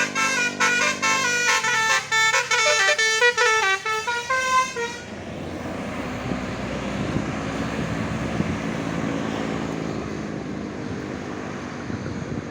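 Multi-tone bus 'telolet' horn playing a quick tune of short stepping notes, which stops about five seconds in. It gives way to a steady rumble of engine and road noise.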